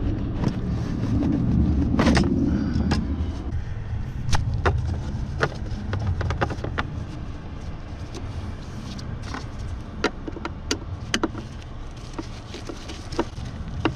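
Scattered sharp clicks and taps of screwdrivers and small parts against the metal floor and pedal bracket of a Mercedes W126 footwell, over a steady low rumble. The first few seconds carry denser handling noise.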